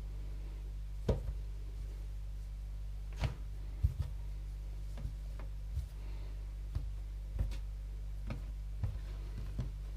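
Scattered light knocks and taps of hands and bread-dough strands against the work surface while a plaited Zopf loaf is braided, about ten in all at irregular spacing. A steady low hum runs underneath.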